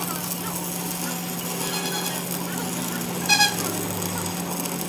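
Stick arc welding inside the bore of a steel truck wheel hub: a steady crackling sizzle of the arc as weld is laid on the bore, over a constant low hum. A brief high-pitched tone about three seconds in is the loudest moment.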